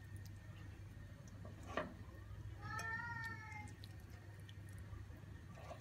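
A cat meows once, a single drawn-out call of about a second, just past the middle. Shortly before it comes a single knock of the wooden serving spoon against the porcelain plate, over a steady low hum.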